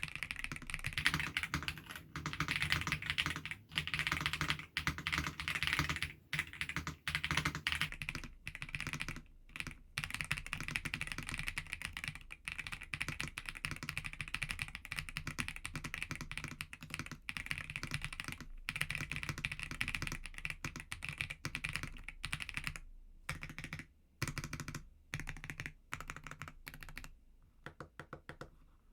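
Fast typing on a mechanical keyboard: a dense, continuous run of key clicks broken by short pauses, thinning out near the end.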